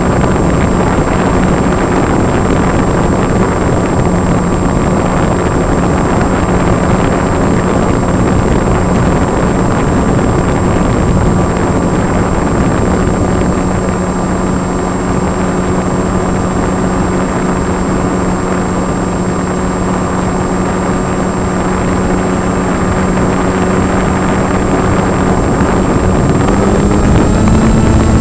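Brushless electric motor and propeller of a small foam RC plane running steadily, heard close up from a camera mounted on the plane, over loud wind rush. The motor's hum steps up slightly in pitch near the end.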